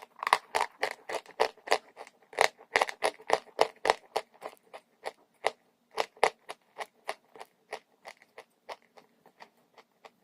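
Dry chalk crunching as it is chewed, close up: a run of short, sharp crunches, about two to three a second, fading slightly toward the end.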